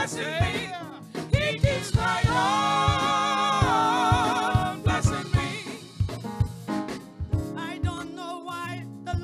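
Gospel choir singing into microphones over a live band with drums and bass guitar, holding a long wavering chord about two seconds in before the voices thin out.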